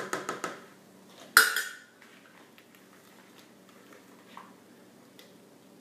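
Utensil clatter from stirring in a plastic bucket of soapmaking oils: a quick run of taps at the start, one loud clatter about a second and a half in, then only faint ticks.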